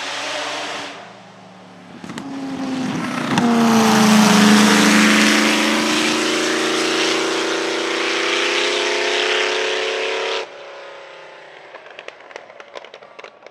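Auto Union Type C's supercharged V16 racing engine accelerating hard as the car passes. There is a drop in pitch about three seconds in, then a loud, steadily rising note that cuts off abruptly about ten seconds in. A fainter engine note with scattered crackles follows near the end.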